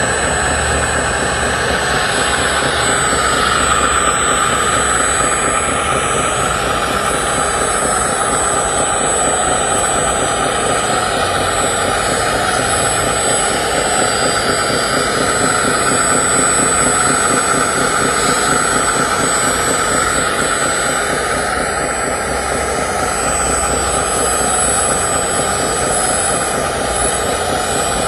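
Radio-controlled model excavator running its motors continuously as it digs and swings, a steady mechanical whine and hum whose pitch wavers a little with the work.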